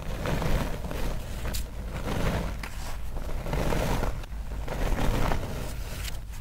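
Hands squeezing and crumbling a cornstarch and baking-soda powder mix, giving dry squeaky crunching in repeated swells roughly once a second, with small crackles as the packed clumps break apart.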